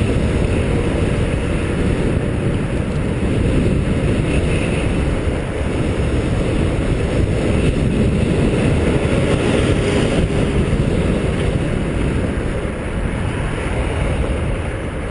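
Loud, steady wind buffeting on a helmet-mounted GoPro's microphone while riding an e-bike at speed: a dense, fluttering low rumble with no clear tones.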